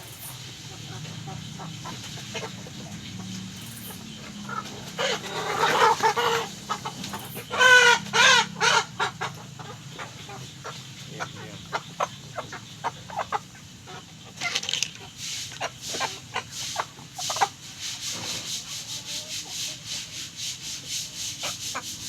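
Chickens clucking and squawking, with a few loud, harsh squawks about five to nine seconds in, followed by a run of quick sharp taps and clicks.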